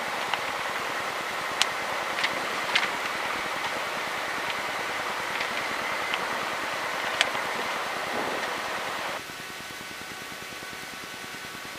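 Steady hiss with scattered sharp crackles in the cockpit radio and intercom audio. About nine seconds in it drops abruptly to a quieter, steady hum.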